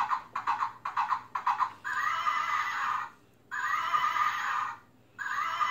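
Recorded horse sounds from a plush rocking horse's built-in sound unit: a quick clip-clop of hooves, about four or five beats a second, for roughly two seconds. Then three long neighs follow, one after another with short gaps.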